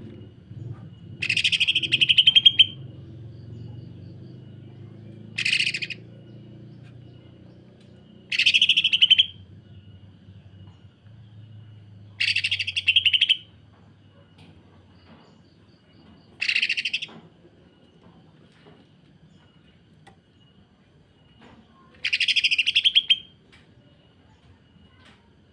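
Green leafbird (cucak ijo) giving its harsh 'sewing machine' call: six short bursts of very rapid rasping ticks, each under a second and a half, a few seconds apart.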